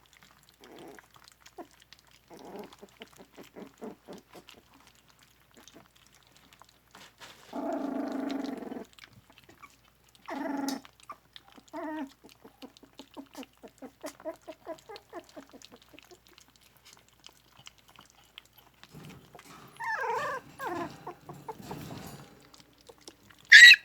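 Dachshund puppies eating their first meal from a dish, with soft wet smacking and lapping clicks. They let out a few short whimpers and squeals, and the loudest cry comes right at the end.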